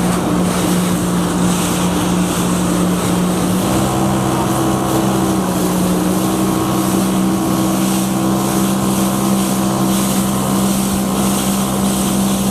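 Jet ski engine running steadily at speed on the water, its hum shifting slightly in pitch about four seconds in, with wind noise and water rush.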